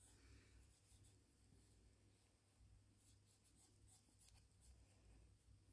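Very faint scratching of a felt-tip marker being stroked over a wooden bauble, a scatter of short light strokes over a low background hum.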